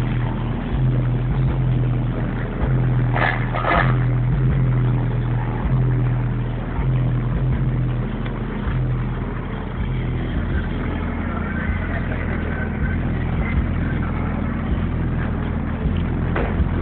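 Heavily amplified car subwoofers playing bass-heavy music, loud and distorted on the microphone. A deep bass note pulses on and off about once a second for the first half, then the bass turns steadier.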